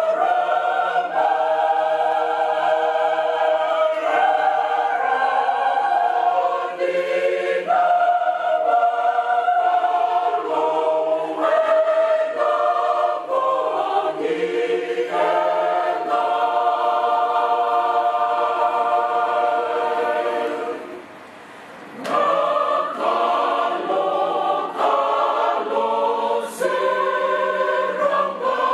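Church choir singing a Christmas carol in parts, with chords held and changing every second or two. There is a short break between phrases about three-quarters of the way through.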